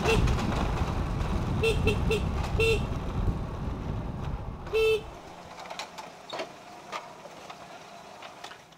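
A vehicle horn honking in short beeps: a quick run of three, single beeps around them, and one longer honk about five seconds in, over a low engine rumble. The rumble drops away right after the long honk, leaving a few faint knocks.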